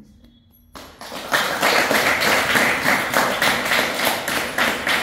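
A small audience of girls clapping their hands in applause, starting about a second in.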